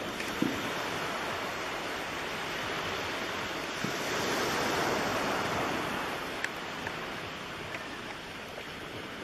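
Steady rushing noise that swells a little about halfway through, with a few faint clicks.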